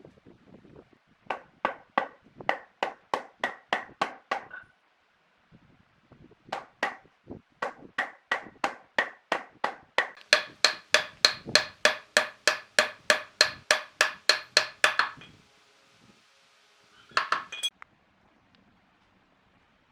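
Hammer blows struck in quick, even runs of about three to four a second, each with a bright ringing tone, and a short pause between runs. A brief flurry of blows comes near the end.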